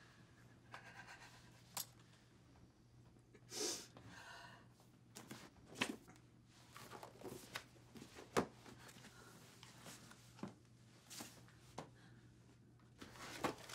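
Books and papers being handled on a floor: quiet rustles with scattered soft knocks and clicks. A heavy breath about three and a half seconds in.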